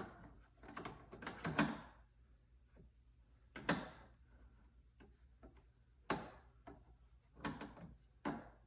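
Sharp clicks and knocks of a speaker mounting bracket being handled and set against a car's inner door: a quick cluster in the first two seconds, then single knocks every second or two.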